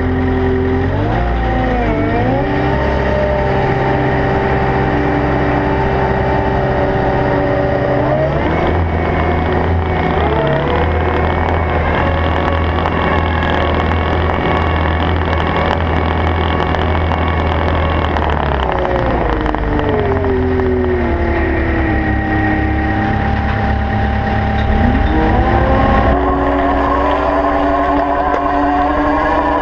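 Caterpillar 299D XHP compact track loader running and travelling, heard close up from its side: the engine and drive hold steady notes that climb in pitch twice early on, drop in the middle, and climb again near the end as the machine changes speed.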